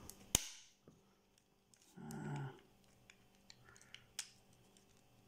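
Plastic casing of an LG Magic Remote clicking as it is pried apart with a toothpick and screwdriver: a sharp click just after the start, faint ticks, and another click about four seconds in. A short grunt from the person about two seconds in.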